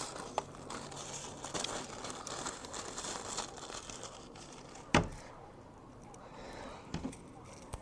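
Rustling, crinkly handling noise for the first few seconds, then one sharp click about five seconds in and two fainter clicks near the end.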